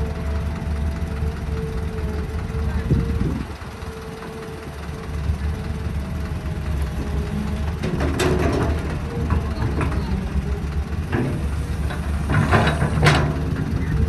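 Heavy construction machinery at work: a diesel engine running with a steady low rumble and a steady whining tone. Bursts of clanking and scraping come about eight seconds in and again near the end.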